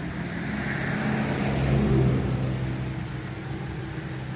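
A car driving past on the road, its engine and tyre noise growing louder to a peak about two seconds in, then fading away.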